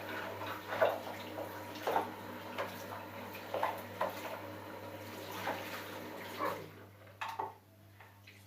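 Tap water running and splashing into a plastic tupperware container as it is rinsed, with short knocks of the container against the sink. The water stops about seven seconds in, leaving a few light clicks.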